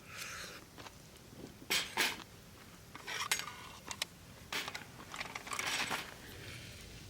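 Cookware and utensils clinking and scraping in several short bursts.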